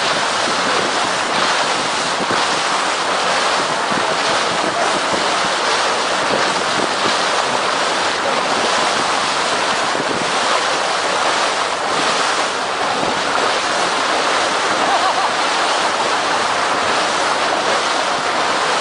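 Steady rush and splash of seawater along the hull of a small boat under way.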